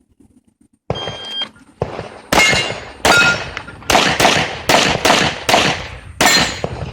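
Electronic shot-timer start beep, then a fast string of about nine handgun shots, some followed by the ring of struck steel targets.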